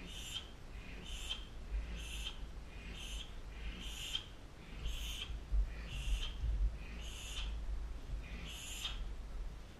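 A man breathing hard and rhythmically through a warm-up, with a sharp hissing breath about once a second.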